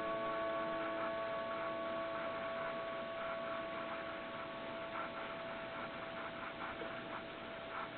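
The Mayland chimes of a 1927 Seth Thomas Chime No. 98 tambour clock ring on after the chime and slowly die away: several held tones fade, the lower ones first, with the clock's faint ticking beneath.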